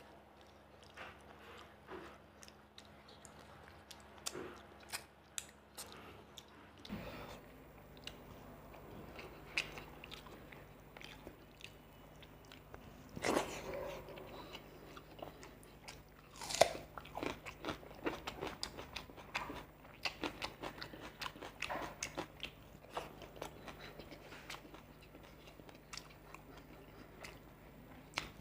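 Close-miked chewing, biting and wet mouth sounds of a person eating rice and fish curry by hand, with a few louder bites. A faint steady hum sits underneath.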